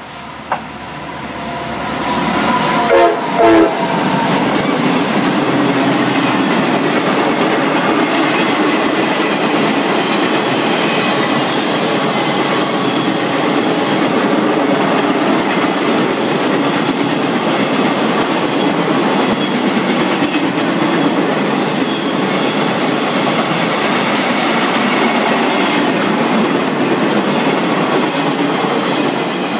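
Empty rail train passing at speed behind a diesel locomotive. About three seconds in the locomotive's horn sounds briefly and drops in pitch as it goes by. Then comes the steady rumble and clickety-clack of the empty flatcars running past.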